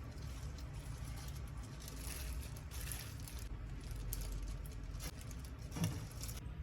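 Soft scattered clicks and rustles over a low steady hum, with one louder knock near the end.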